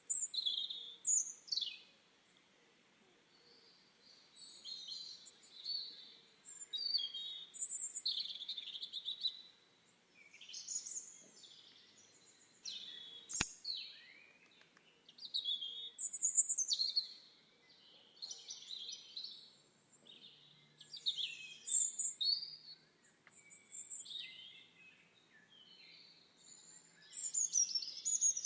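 Songbirds singing, short high chirping and trilling phrases coming every second or two, with one brief sharp click about halfway through.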